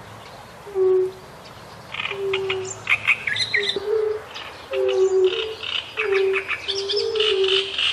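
Wetland birds calling in quick, high chirping bursts from about two seconds in, over a chorus of short, low hooting notes repeated about once a second by several callers at slightly different pitches.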